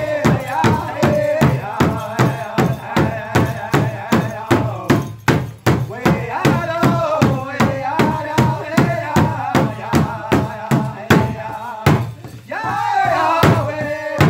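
Powwow big drum struck in unison by several singers with beaters, a steady fast beat, under a group of male voices singing a powwow song. About twelve seconds in the drum stops briefly and one high voice sings a falling phrase alone, then the drum comes back in.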